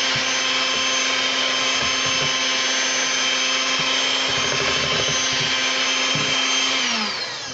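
Electric hand mixer running steadily with a constant whine, its beaters churning pound-cake batter of creamed butter, sugar and eggs in a stainless steel bowl. Near the end it is switched off and the whine falls in pitch as the motor spins down.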